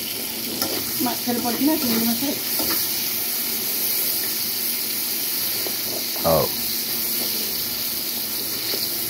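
Potato slices and tomato sizzling in hot oil in a kadai, stirred with a metal spatula, as a steady hiss. A short sliding sound comes about six seconds in.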